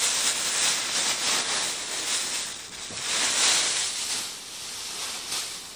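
Thin plastic wrapping rustling and crinkling as a compressed memory-foam block is pulled out of it, easing off near the end.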